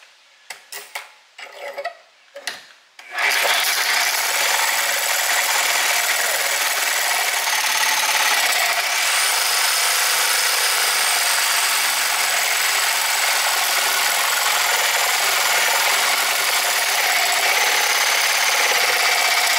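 A few light knocks, then about three seconds in a reciprocating saw starts and runs steadily as it cuts through a steel bracket clamped in a vise, cutting easily.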